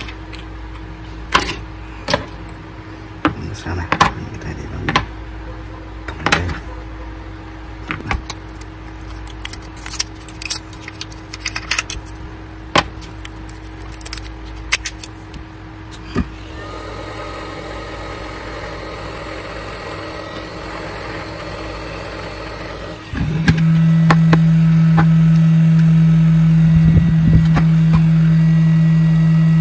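Clicks and knocks of cylindrical lithium-ion cells and their plastic wrappers being handled. About 16 seconds in, a steady whir starts, and about 23 seconds in a loud steady low hum takes over.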